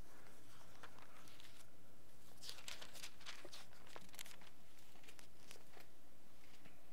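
Pages of a Bible being leafed through by hand: thin paper rustling and crinkling, densest about two and a half to three and a half seconds in, with lighter rustles either side.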